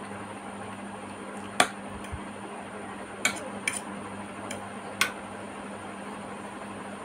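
Metal fork clinking against a ceramic plate four times while noodles are forked up, over a steady low hum.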